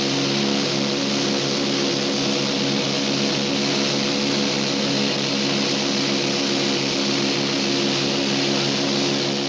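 Douglas DC-3's twin radial piston engines and propellers heard from inside the cabin during the climb: a steady, even drone with a rushing hiss over it.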